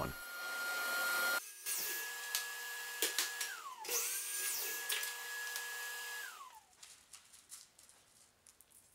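A table saw running briefly and cutting off, then a DeWalt miter saw's motor whining up to speed, running steadily and winding down in pitch as the trigger is released, twice in a row. Faint small clicks near the end.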